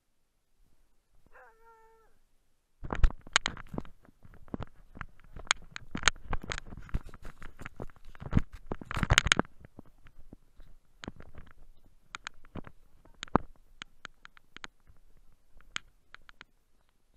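A dog gives one short, high whine. From about three seconds in, a dog mouths and noses the camera in the snow: a dense run of knocks, scrapes and crunches right on the microphone, loudest near the middle and thinning out toward the end.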